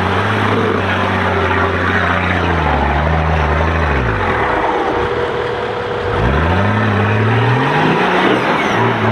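Off-road 4x4's engine working under load as it climbs out of a mud pit: revs held steady, drop away about four seconds in, then rise again a couple of seconds later and hold.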